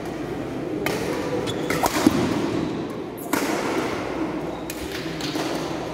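Badminton rackets striking the shuttlecock in a fast doubles rally: several sharp hits, roughly one a second, some in quick pairs, over the steady murmur of a crowded hall.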